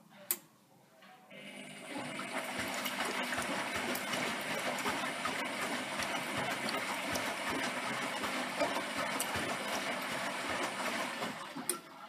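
Water sloshing and swishing in the drum of a Zanussi Electrolux 1200 front-loading washing machine as the drum turns on a wash cycle. It starts about a second in and stops near the end, with a sharp click just before it starts and another as it stops.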